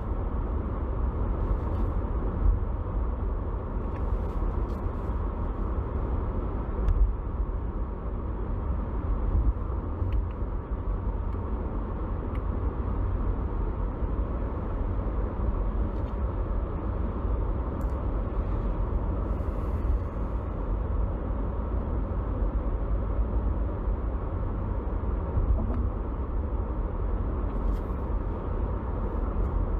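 Steady low rumble of a moving car heard from inside the cabin: engine and road noise of a BMW G20 318d diesel.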